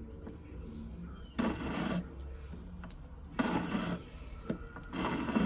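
Metal hand file rasping across the shank of an 18 karat gold ring: three strokes about half a second each, roughly one and a half seconds apart, smoothing a soldered-in piece flush with the band.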